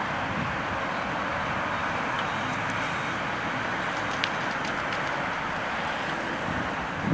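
Steady city road-traffic noise, an even, unbroken hiss and rumble, with a faint click a little after four seconds in.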